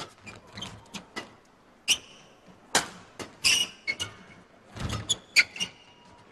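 Badminton rally: rackets striking the shuttlecock in a string of sharp smacks, about five or six over the few seconds, with brief high squeaks from shoes on the court.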